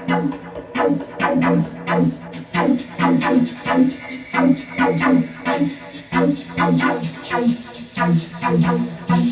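Low droning, pitched music-like sound pulsing rhythmically, about two pulses a second, with short clicks on each pulse.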